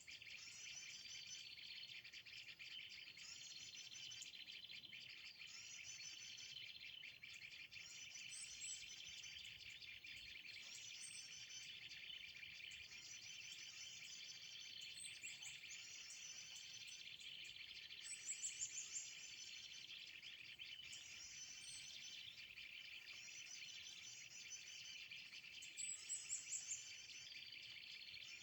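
Faint steady chirring of insects with a high chirping phrase repeating about every second and a half, and two louder runs of quick high chirps, one about two-thirds of the way in and one near the end.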